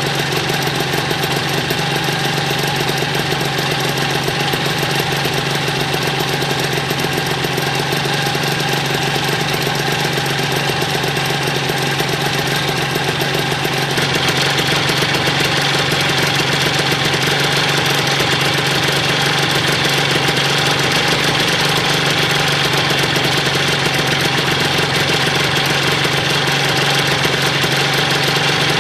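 Honda NSR50's two-stroke single-cylinder engine, bored up with a Kitaco 63cc kit, running steadily at idle with an abnormal noise (異音) that the owner is pointing out. About halfway through it gets slightly louder and brighter.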